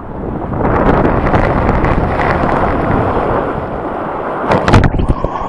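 Rushing water and wind buffeting the microphone of a camera riding down a waterslide, a steady loud rush that builds about half a second in, with a cluster of loud thumps near the end.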